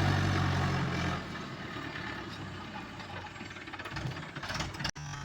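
A heavy machine's diesel engine running, loud for about the first second and then settling to a lower steady level; the sound cuts off abruptly near the end.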